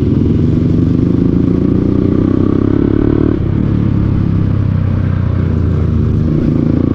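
Kawasaki Z800's inline-four engine running under way, its note dropping about halfway through and then holding steady.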